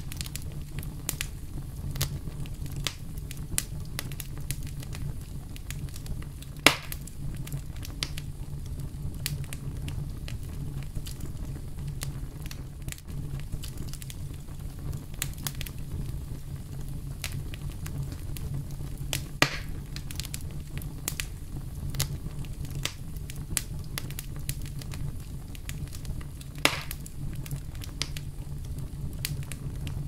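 Wood campfire crackling over a steady low rumble, with frequent small pops and three louder sharp snaps spread through.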